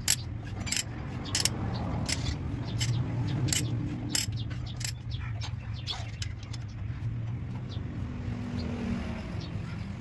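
Sharp metal clinks of a spanner and loose steel studs being handled on a Fiat 480 tractor's cover plate, frequent at first and sparser in the second half. Under them a vehicle engine runs with a steady low hum.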